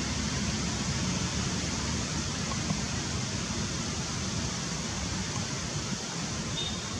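Steady rushing outdoor background noise with no distinct events, and a brief faint high tone near the end.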